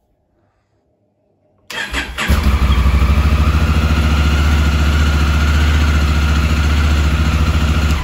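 Honda Africa Twin's 998 cc parallel-twin engine: the electric starter cranks briefly about two seconds in, the engine catches and settles into a steady idle, then cuts off abruptly near the end. It keeps running after the starter button is released, the sign that the start-then-die fault of the carbon-fouled starter switch is cured.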